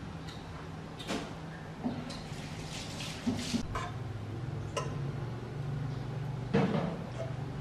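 A few light knocks and clicks over a steady low hum, the loudest knock near the end.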